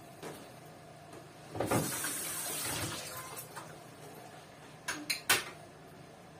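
Kitchen tap running into the sink as a plastic container is rinsed, the water loudest for a second or so about a third of the way in, then three sharp knocks close together near the end.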